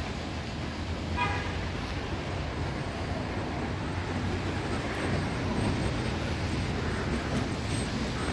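City street traffic: a steady wash of passing vehicles with a low rumble, and a brief toot about a second in.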